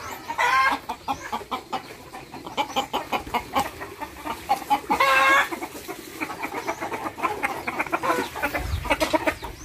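Backyard chickens clucking in short calls, with two louder squawks about half a second in and about five seconds in.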